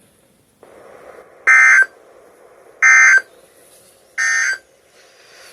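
Three short bursts of EAS/SAME digital data tones from a weather radio, each about a third of a second long and a little over a second apart, over faint radio hiss: the end-of-message code that closes the severe thunderstorm warning.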